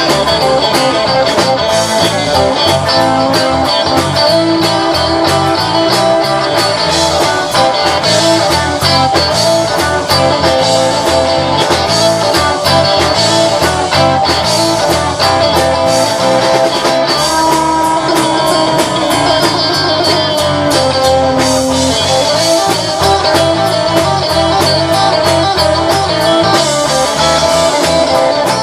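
Live blues-rock band playing an instrumental passage: electric guitars and an electric bass over a steady drum beat, with no singing.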